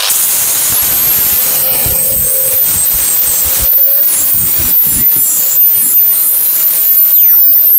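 Handheld angle grinder spinning up and grinding a fresh weld on steel, a steady high whine over the scraping hiss of the disc on metal. It is switched off near the end and its whine starts to fall as it winds down.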